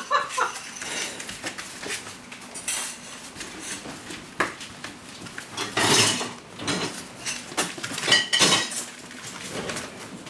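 Puppies romping and wrestling over plush toys: scuffling paws and a run of light clicks and clinks, with louder scrabbling about six and again about eight seconds in.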